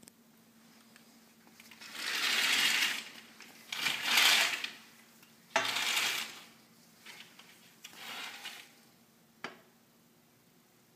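Wrought-iron screen door being handled: several rattling, scraping bursts of about a second each, a sharp clunk about five and a half seconds in, and a single click near the end.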